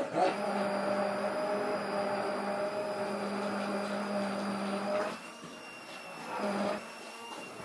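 Hand-held electric immersion blender switched on and running in a steel bowl of body lotion that is beginning to thicken as it cools. It runs with a steady motor whine, gets quieter about five seconds in, and surges briefly near the end.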